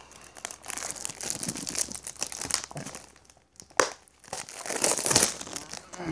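Plastic wrapping crinkling and tearing as a boxed software package is unwrapped by hand, in irregular rustles, with a sharp click just before four seconds in and louder rustling about five seconds in.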